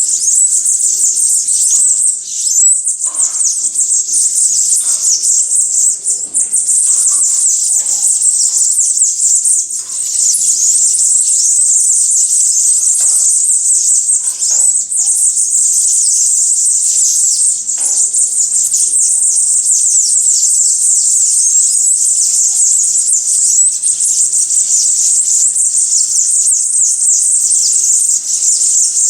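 Many small birds chirping and twittering at once in a dense, continuous high-pitched chatter, with scattered brief lower sounds.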